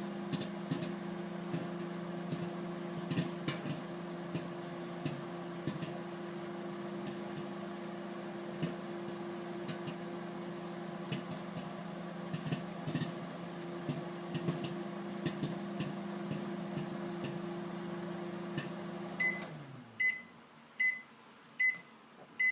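Microwave oven running with a steady hum while popcorn pops sporadically inside the popcorn maker. About nineteen seconds in, the oven finishes its cycle: the hum winds down and about five short, high end-of-cycle beeps sound roughly a second apart.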